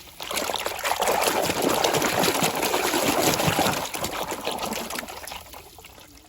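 Water running and trickling over a muddy toy truck as it is rinsed clean. The flow is loudest through the first four seconds, then fades away.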